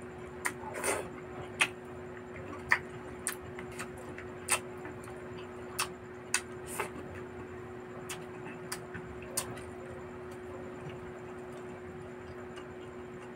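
Close-miked chewing of barbecued meat: irregular sharp wet smacks and clicks from the mouth, about one or two a second, thinning out after about nine seconds. A steady low hum runs underneath.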